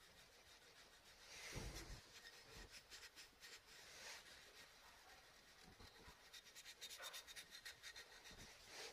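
Faint scratchy rubbing of sandpaper worked by hand over a small carved figure, in runs of quick short strokes, with a soft bump about a second and a half in.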